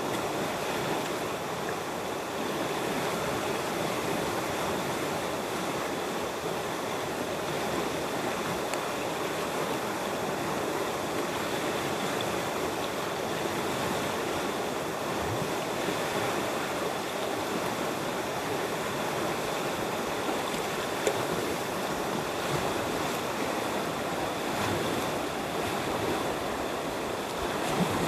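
A river flowing: a steady, even noise of moving water that does not let up.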